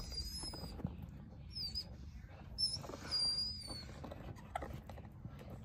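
A miniature dachshund mouthing and chewing a red rubber toy, which gives a handful of thin, high-pitched squeaks, some wavering or sliding down in pitch, over a low rumble of handling noise.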